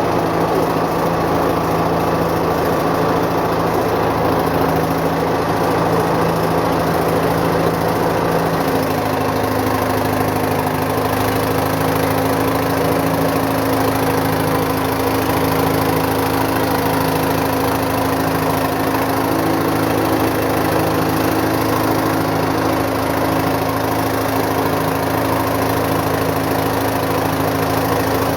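Caterpillar 955 track loader's diesel engine running steadily, its note shifting slightly about nine seconds in.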